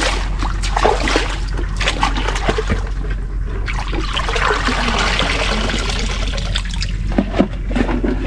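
Water trickling and splashing continuously, with irregular sharper splashes near the start and again near the end.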